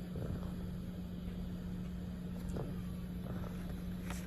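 Steady low hum with faint soft rustles and light taps as trading cards are handled and flipped.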